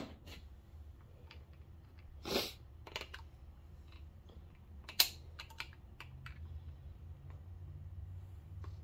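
Scattered light clicks and taps of metal parts as hydraulic lifters are worked up out of their bores in a 5.3L LM7 engine block, with a short scrape about two and a half seconds in and a sharper click around five seconds. The lifters are stuck and barely want to come out.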